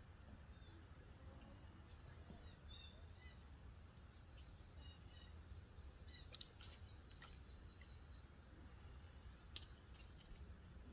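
Near silence: a faint, steady low rumble of outdoor ambience, with a few faint bird chirps and occasional soft clicks.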